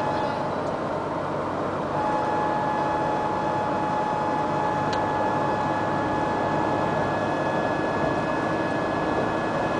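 Road and engine noise inside a 2010 Ford Explorer's cabin at speed, with a steady high tone in two pitches that comes on about two seconds in; the lower pitch drops out near seven seconds while the higher one keeps sounding. This is the unexplained sound that appears only after hours of highway driving, which the dealer took for a 100 km/h speed alarm.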